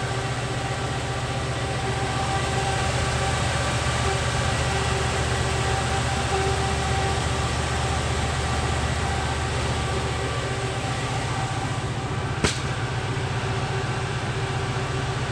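Dozens of bitcoin ASIC miners running together with their cooling fans at full speed, an even rushing drone, over the steady low hum of the natural-gas engine generator running at speed. A single sharp click comes about twelve seconds in.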